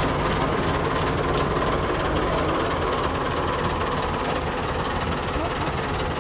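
Heavy diesel earthmoving machinery running steadily with a low engine rumble, with faint metallic clicks in the first couple of seconds.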